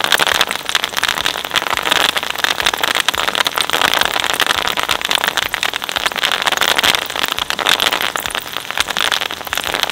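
A dense, continuous crackle of bubble wrap bubbles popping as the cutters of a twin-shaft shredder tear through the sheet.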